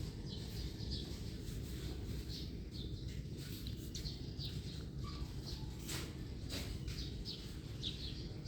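Birds chirping in short, repeated calls over a steady low hum, with two sharp clicks about six seconds in.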